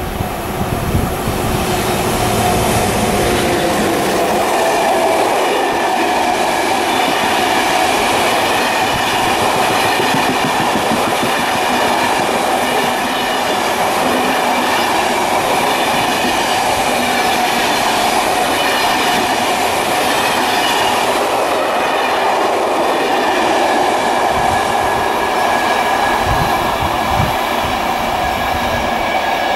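Intercités night train of Corail coaches, hauled by BB 7280 electric locomotive, passing at speed: a steady loud rush of wheels on rail with clickety-clack over the joints and a held ringing tone from the wheels.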